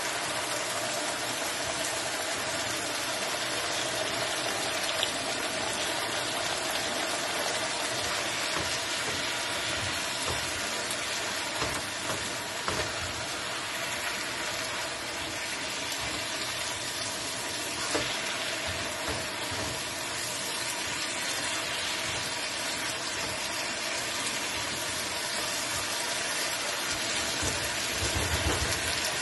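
Bell pepper strips and chicken frying in a nonstick skillet: a steady sizzle, with a few short taps from the silicone spatula as the food is stirred.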